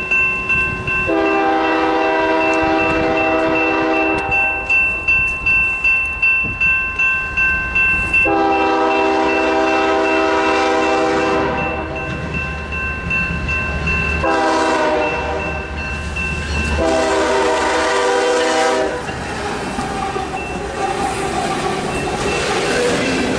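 A Graham White electronic crossing bell dings steadily while an approaching freight locomotive sounds its multi-note air horn in four blasts (long, long, short, long), the standard warning for a grade crossing. Near the end the locomotive and its freight cars pass close by with a rumbling clatter of wheels on rail.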